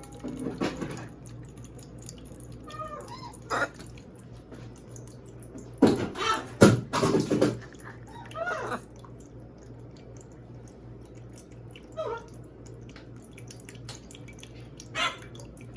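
Macaws drinking from a fresh coconut: scattered drips and splashes of coconut water and knocks of beaks on the shell, with a louder cluster about six to seven and a half seconds in.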